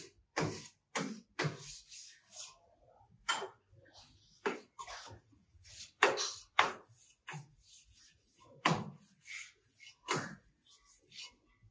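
Steel hand trowel scraping and slapping wet white mortar on a concrete stair step, a quick irregular series of short strokes.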